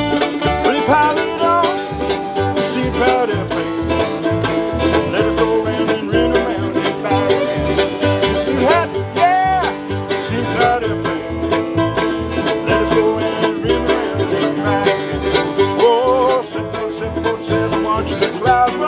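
Bluegrass band playing, banjo prominent over guitar, at a steady driving tempo.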